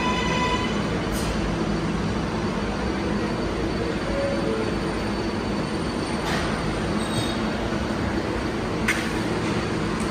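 R188 subway train of the 7 line moving along the platform at its terminal station with a steady rumble of wheels and motors. A motor whine fades out about half a second in, and a few brief sharp squeals or clanks come later.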